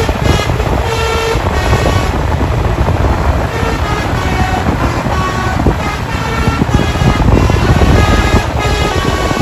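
Bus telolet horn playing a quick tune of short notes that jump between pitches, over a steady low rumble.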